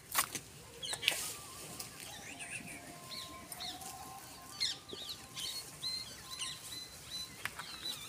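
Small birds chirping and twittering in the background, with many short wavy calls throughout and a couple of sharp clicks in the first second or so.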